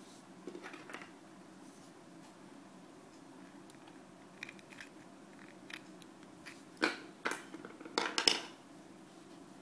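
Hands working fishing line with a small metal tool: light clicks and rustles, then a few sharper clicks near the end.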